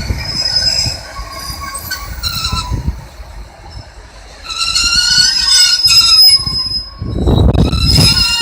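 Class 156 Sprinter diesel multiple unit pulling slowly into the platform, its wheels squealing in several high tones. The squeal is loudest about halfway through and again near the end, the second time over a low rumble.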